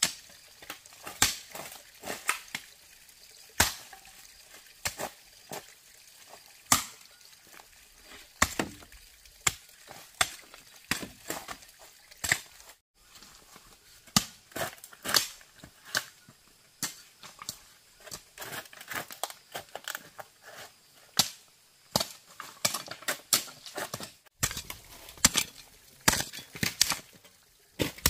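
Hand tools striking bamboo: a long run of sharp, irregular chops and knocks, sometimes several a second, in clusters with short pauses between.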